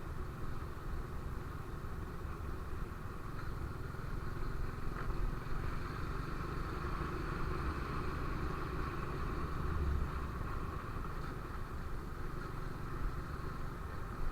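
Motorcycle engine running steadily while riding, a continuous low rumble.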